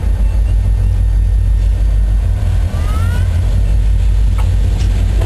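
CN diesel-electric freight locomotive approaching, its engine a loud, steady low sound. A faint, brief rising tone comes about three seconds in.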